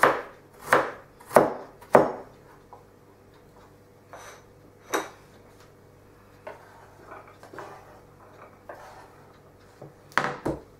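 Kitchen knife chopping carrot on a wooden chopping board: four firm chops in the first two seconds, about two-thirds of a second apart. Then lighter knocks and faint scraping as the diced carrot is pushed off the tilted board onto a plate, with two more knocks near the end.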